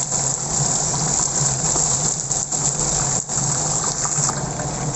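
Half-cooked chicken pieces frying in hot oil in a wok: a steady sizzle.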